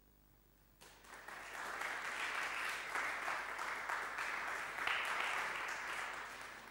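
Audience applauding, starting suddenly about a second in and carrying on steadily.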